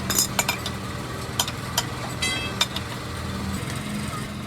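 Sharp metallic clinks, a handful in the first three seconds, with one piece of metal ringing briefly a little past two seconds in, over a steady engine hum.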